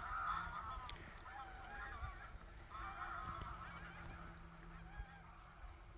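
A distant flock of geese on floodwater, a faint, continuous chorus of overlapping honking calls.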